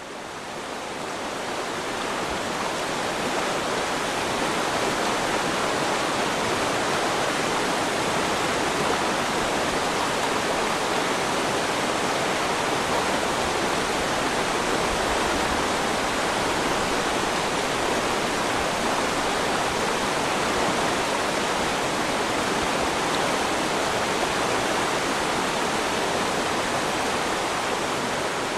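Steady rush of water falling down a waterfall, fading up over the first few seconds.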